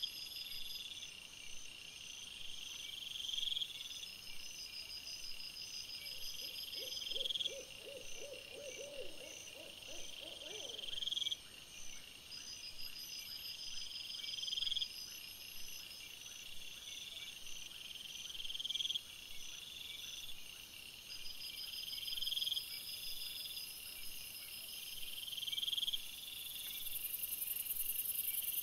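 Night insects calling: a high buzzy call repeating about every two seconds and swelling in loudness each time, over a faster steady pulsing chirp. From about six to eleven seconds a lower, rapid pulsed call joins in.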